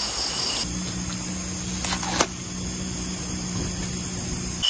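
Crickets chirping, cut off after about half a second by a steady low hum that carries two sharp clicks about a third of a second apart.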